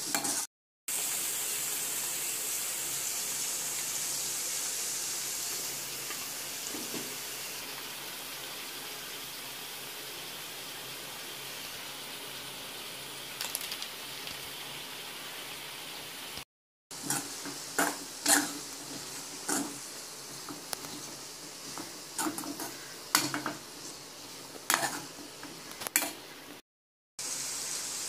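Vegetables sizzling as they fry in a metal kadai, a steady hiss, then a slotted metal spatula scraping and clinking against the pan as the mix is stirred through the second half. The sound drops out briefly a few times.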